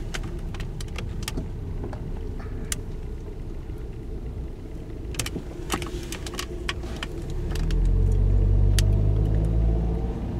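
Car engine and road noise heard from inside the cabin while driving slowly, with scattered small clicks and rattles. About three-quarters of the way through, the engine pulls harder and its low rumble swells for a couple of seconds before easing.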